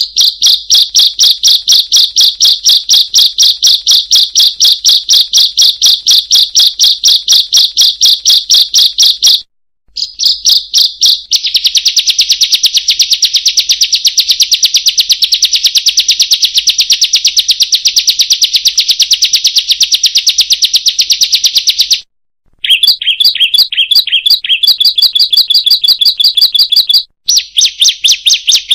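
Ciblek, a small songbird, calling a rapid, unbroken string of high, harsh "kriek" notes, about five a second, broken by three short pauses.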